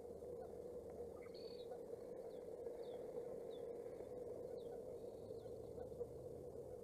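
Osprey chicks begging with faint, high, short chirps that slide downward, about half a dozen from a second and a half in until near the end, over a steady hum.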